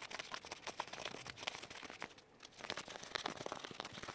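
Laminated cotton fabric crinkling and rustling as it is bunched by hand along a gathering stitch: a dense run of small irregular crackles, with a short lull a little past halfway.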